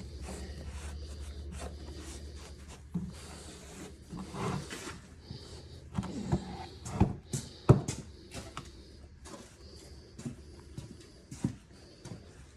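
Handling noises on a workbench as the removed engine crankshaft is wiped with rags and turned over: rubbing, with scattered sharp knocks and clunks, the loudest a bit past the middle. A low steady hum runs under the first few seconds.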